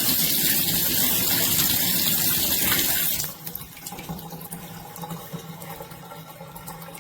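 Water running from a tub-shower faucet as a loud, steady rushing hiss; about three seconds in the flow drops suddenly to a much quieter, thinner spray.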